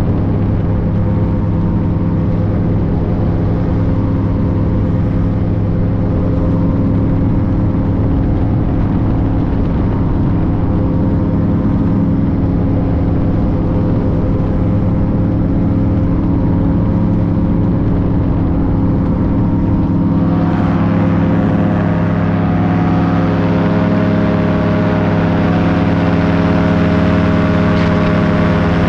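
An engine running steadily at constant speed, its note shifting slightly about twenty seconds in.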